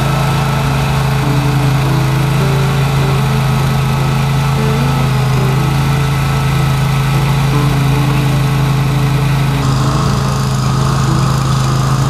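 Small petrol rototiller engine running steadily, tilling a crushed-limestone trail bed to bring the fines up into the stone.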